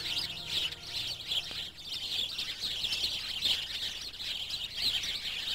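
Many small birds chirping and twittering together in a continuous, busy chorus of short high-pitched notes.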